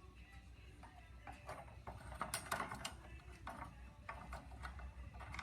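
A quick run of knocks and rattles from equipment being handled, loudest a little over two seconds in.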